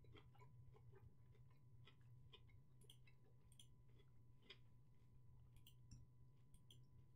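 Near silence: faint, irregular clicking over a steady low hum.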